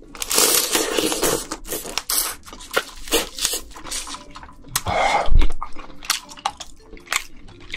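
Close-miked eating of cooked red snow crab: shell and meat crackling and tearing as a leg is pulled apart, then wet sucking and chewing as the meat is eaten from the leg. Many small clicks throughout, with the loudest burst just after five seconds in.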